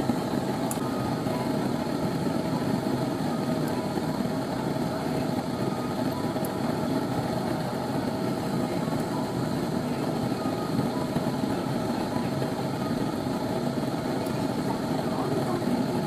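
Glass lampworking bench burner running steadily: a continuous rushing flame noise, with a few faint ticks.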